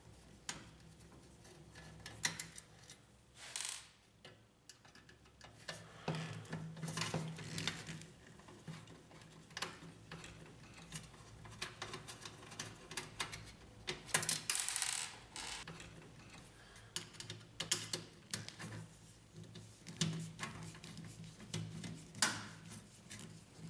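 Screwdriver work on the metal protection plate of an HP LaserJet P1102 laser printer as its small screws are taken out: scattered light clicks and metallic taps, with a longer scrape about two-thirds of the way through.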